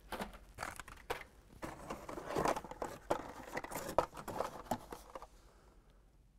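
Hot Wheels blister-pack cards rustling and clacking against each other as they are pulled out of a cardboard shipping case and handled: a busy run of crinkles and light knocks that stops about five seconds in.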